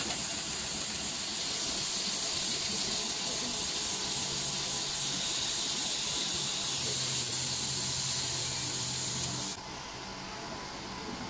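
A 100 W CO2 laser engraving machine running while it engraves, giving a steady airy hiss with a low hum under it. About nine and a half seconds in the sound drops to a quieter hiss.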